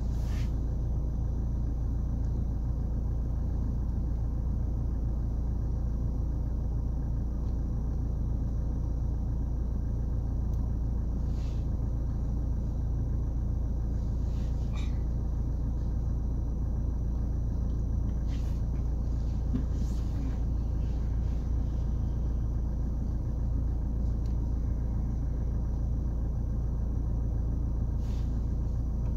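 Steady low rumble inside a car cabin, with a few faint clicks as the touchscreen DVD head unit is pressed.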